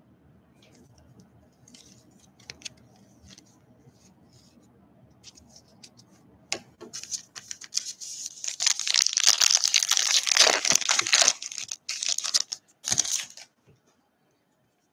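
Silver foil wrapper of a basketball trading card pack being torn open and crinkled by hand. A few faint handling clicks come first, then loud crinkling and tearing starts about six and a half seconds in and lasts about seven seconds, with short pauses.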